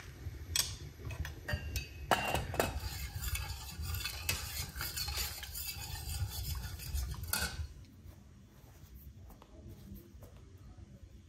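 Metal utensils clinking and scraping against dishes and pots, a busy run of sharp clinks that quietens about eight seconds in, over a steady low rumble.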